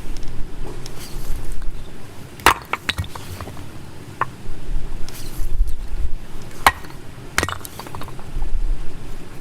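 Campfire burning, the wood crackling and snapping in sharp, irregular pops, with a few louder cracks about two and a half seconds in and again near seven seconds, over a low steady rumble.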